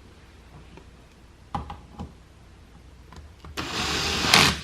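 Two light knocks, then a power drill runs for about a second, driving a screw, getting louder just before it stops.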